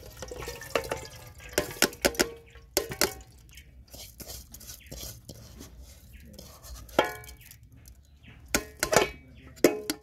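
An aluminium cooking pot knocking and scraping against a plastic colander and the rim of a metal basin as cooked rice is tipped out of it. There are repeated sharp knocks, some with a short metallic ring, and a quick cluster of them near the end.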